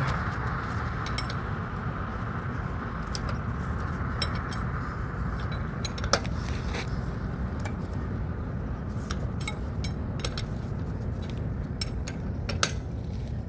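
Irregular metallic clicks and clinks of hand tools, a jack and lug wrench, being worked at a car wheel during a tire change, over a steady low background rumble.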